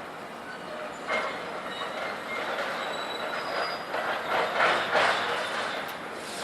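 Scrap metal clanging and crashing as a loader handles it: a run of metal impacts starts about a second in, with thin, high metallic squeals ringing over them, loudest a little before the end.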